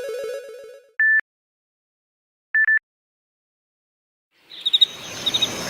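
Samsung Galaxy Note 2 alert tones previewed one after another. A melodic ringtone fades out. About a second in there is a single short, high electronic beep, then a quick triple beep about a second and a half later, with silence between. Near the end the next tone starts as a rising hiss with high chirps.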